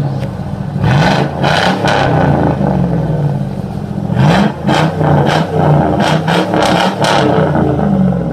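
The 4.8 L Vortec V8 of a 2001 Chevrolet Silverado being revved through its exhaust in a string of quick throttle blips, the pitch jumping up and falling back about eight times.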